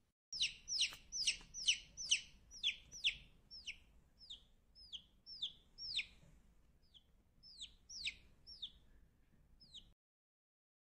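Domestic chicken chick peeping: a run of short, high, downward-slurred peeps, about two or three a second at first. They thin out, pause briefly about six seconds in, and a few more follow before they stop.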